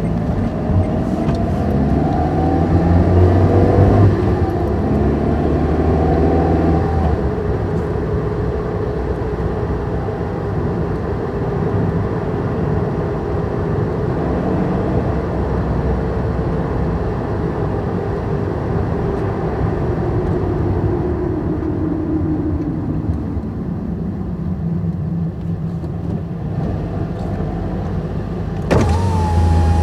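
Car driving, engine and road noise together. The engine pitch climbs for the first few seconds and breaks off sharply about four seconds in, holds steady through the middle, and falls away in the second half. Near the end a sudden louder surge comes in with a short falling whine.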